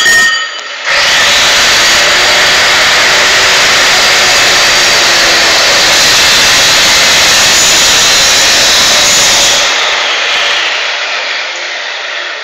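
Angle grinder cutting through a steel shelving upright: a short burst, a brief dip, then a loud, steady grinding that runs for about nine seconds and fades away over the last few seconds.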